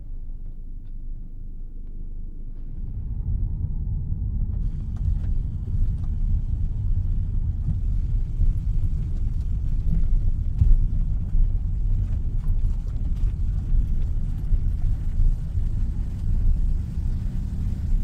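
Steady low rumble of road and wind noise inside a moving vehicle. It grows louder about three seconds in, and a higher hiss joins it a little later.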